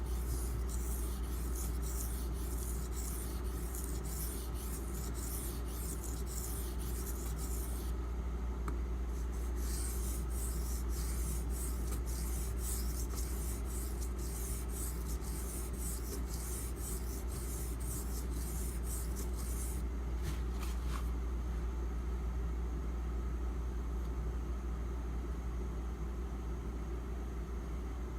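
An 8Cr13MoV steel knife blade stroked back and forth on a wet Imanishi 1k/6k combination water stone, a rhythmic scraping at about two to three strokes a second. The strokes pause briefly about eight seconds in, and after about twenty seconds they turn much fainter.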